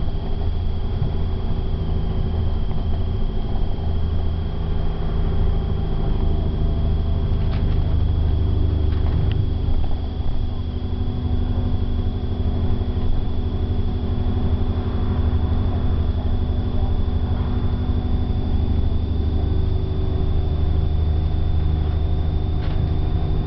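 Engine and road noise of a moving vehicle, heard from inside the cab: a steady low drone whose pitch shifts a few times as speed changes, with a thin steady whine above it.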